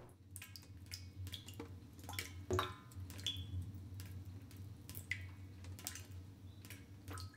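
Water dripping: irregular single drops plinking, roughly two a second, over a low steady hum.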